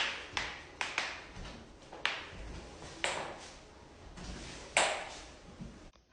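Sharp cracks and pops of human joints being cracked: about seven, irregularly spaced, some in quick succession, the loudest right at the start.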